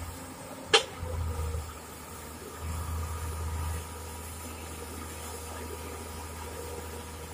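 Komatsu PC200 excavator's diesel engine running, its low drone swelling twice as it works, over a steady hiss. A single sharp knock, the loudest sound, less than a second in.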